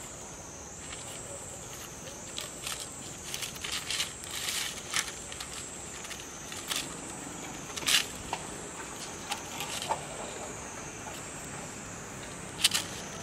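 Insects buzzing in a steady high-pitched chorus, with scattered sharp clicks and rustles on top; the loudest click comes about eight seconds in and a pair comes near the end.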